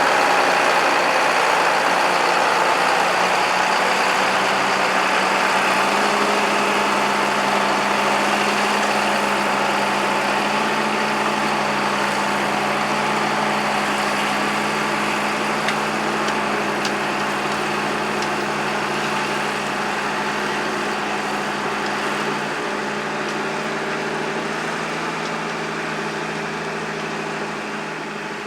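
Tractor engine running steadily, its sound slowly growing fainter.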